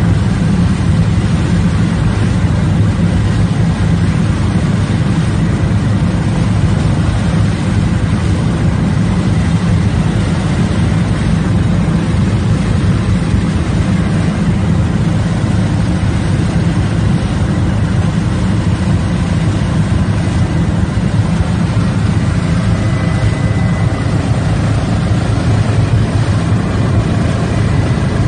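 Aircraft engine droning steadily, heard from inside the cabin: a loud, even low hum that does not change.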